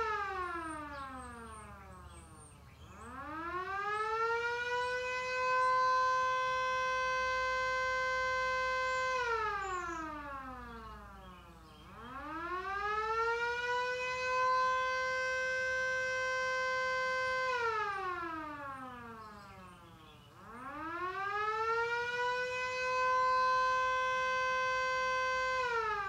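Vixen Horns siren on test, winding up and down in a slow cycle. Its wail falls away, climbs again over about two to three seconds, holds a steady pitch for about five seconds, then slides back down. The rise and hold come three times, and a fall begins again near the end.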